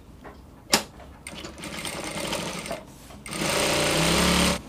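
A sewing machine stitching a seam in two runs: a softer run, a short pause, then a louder run that stops abruptly near the end. A single sharp click comes just before the first run.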